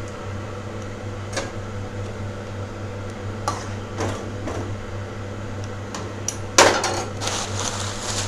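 A steel ladle knocking and scraping against a metal kadai as vermicelli is stirred into simmering water. The knocks are scattered, the loudest about six and a half seconds in, followed by a couple of seconds of rougher scraping. A steady low hum runs underneath.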